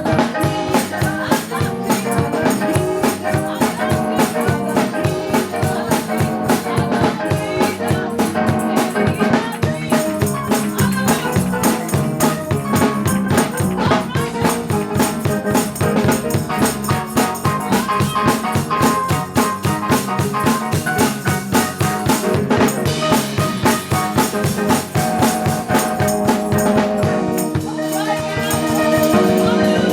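Live gospel praise music, with percussion keeping a fast, steady beat over pitched instruments. Near the end the beat stops and a held chord rings on.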